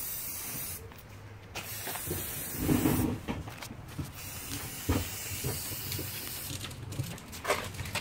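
Aerosol spray-paint can hissing in long bursts as paint is sprayed, with short breaks about a second in and again near three and seven seconds in. A brief low sound comes near three seconds in.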